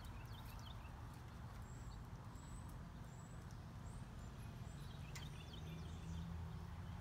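Faint outdoor background with a steady low rumble, and the light tapping of a small dog's claws on a concrete patio as a blind miniature pinscher walks about. A few short chirps come near the start and again about five seconds in.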